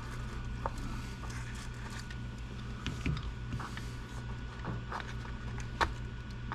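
Scattered light clicks and taps as small RC car parts are handled and fitted into the chassis, over a steady low hum.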